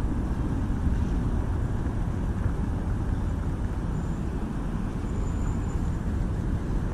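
Steady low rumbling outdoor background noise with no distinct event.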